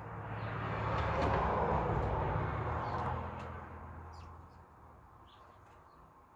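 A passing vehicle, its sound swelling to a peak a second or two in and fading away by about four seconds. A few faint, short bird chirps sound over it.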